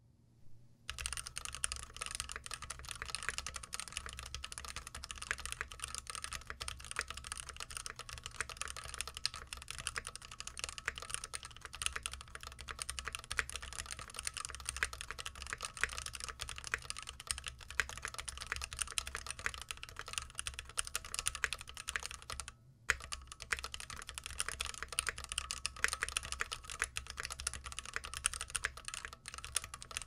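Fast, continuous typing on a Keychron Q1 aluminium gasket-mount keyboard with pre-lubed Gateron Phantom red switches, with a brief pause about three-quarters of the way through. The keystrokes carry a metallic ping, which the reviewer blames on the gasket-mount design rather than the switches or foam.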